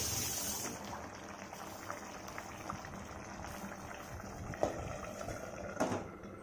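Dry fish curry bubbling at a boil in a steel pan, a steady hiss with many small pops. Near the end come two sharp metallic clinks about a second apart as a steel plate is set on the pan as a lid.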